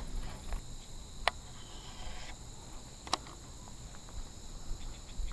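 Insects trilling steadily in high, continuous tones, with two sharp clicks about one and three seconds in.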